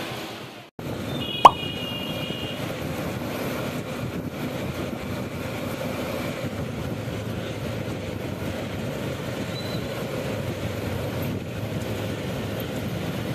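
Steady road and engine noise of a motor tricycle ride through town traffic, heard from the open passenger sidecar. A sharp pop comes about a second and a half in, with a short high tone just after it.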